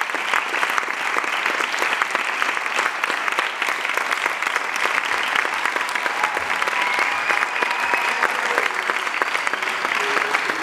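Theatre audience applauding steadily: dense, continuous clapping from many hands.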